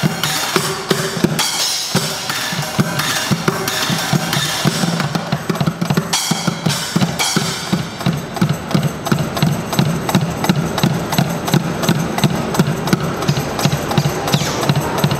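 Bucket drumming: sticks beating a makeshift kit of upturned plastic buckets and cymbals in a driving rhythm. The strokes grow denser and more even about halfway through.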